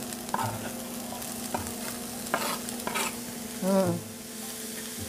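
Onions, garlic and oyster mushrooms sizzling in olive oil in a cast-iron skillet, as chopped mushrooms are scraped off a wooden cutting board with a knife and stirred in with a wooden spoon, giving a few sharp knocks and scrapes over the steady sizzle.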